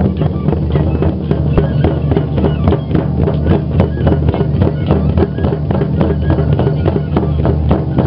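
Music with drums and a steady bass line, the drum strokes coming in a quick, even rhythm.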